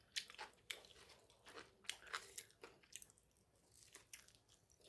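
Faint chewing of crispy fried pakora close to the microphone: a string of irregular crunches, several a second, easing off for a moment past the middle.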